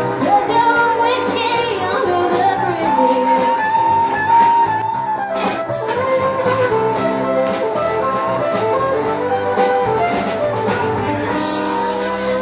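Live country band playing: acoustic guitar, electric bass, drums with steady cymbal and snare strokes, and a fiddle holding long notes.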